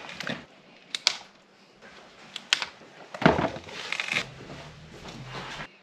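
Several sharp clicks and a stretch of rustling, scraping handling noise, the sounds of cables, connectors and hand tools being worked at a socket.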